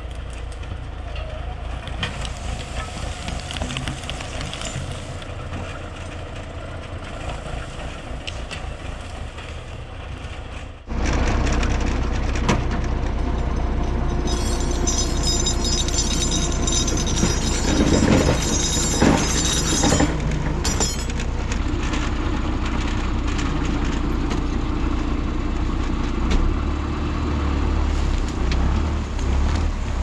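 John Deere 6400 tractor's diesel engine running steadily while its Ritter forestry winch drags felled logs in on the cable. It becomes much louder and closer about eleven seconds in, and a high whine sounds for several seconds midway, with a few knocks.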